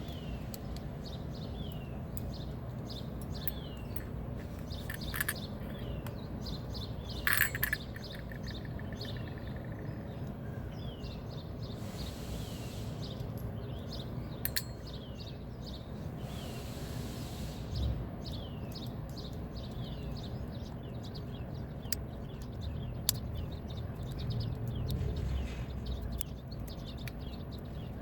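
Small sharp metal clicks and ticks as a car door lock cylinder is worked on during rekeying to the original key, with a cluster of clicks about seven seconds in. Birds chirp over and over in short falling chirps, over a steady low hum.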